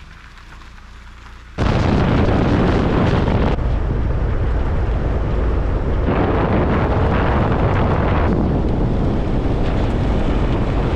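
Wind buffeting the microphone over the rumble of a vehicle on the road, coming in abruptly about one and a half seconds in and running on loud and steady.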